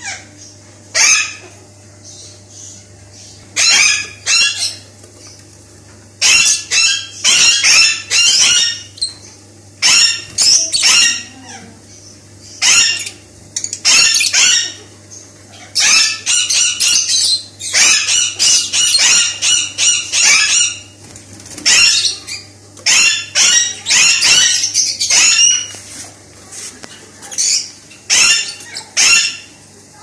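Several Fischer's lovebirds giving loud, shrill chirps in rapid bursts, with short pauses between the bursts, over a steady low hum.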